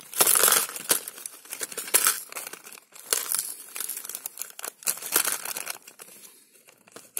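Clear plastic zip bag crinkling as it is handled and its electronic kit parts are tipped out into a plastic tray, with scattered light clicks of small components. Strongest in the first few seconds, then quieter.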